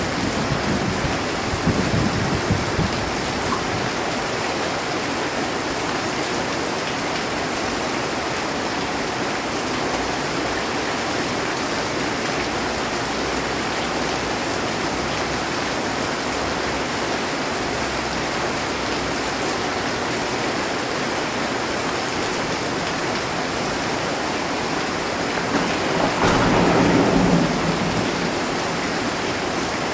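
Heavy rain falling steadily on a metal roof, with a rumble of thunder dying away in the first few seconds and another thunderclap rolling in near the end.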